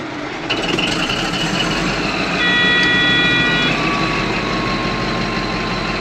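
Cat D11 bulldozer's engine running, heard from inside the cab. About two and a half seconds in, a steady electronic alarm tone sounds for just over a second, and a thin whine then sinks slightly in pitch.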